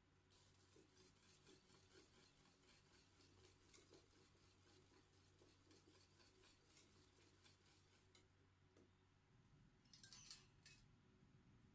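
Faint scraping and clicking of a wire whisk stirring thick rice porridge in a stainless steel pot, with a brief louder clatter about ten seconds in.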